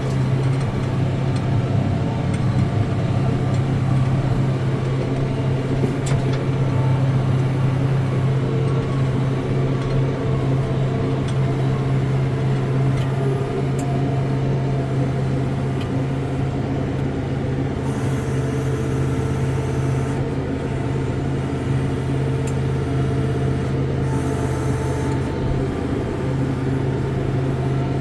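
Vehicle engine running at a steady speed, a constant low hum that holds the same pitch throughout.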